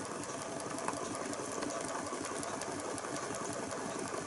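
Small vertical-crankshaft toy Stirling engine with a glass displacer cylinder running steadily, a fast even mechanical clatter of its piston and crank.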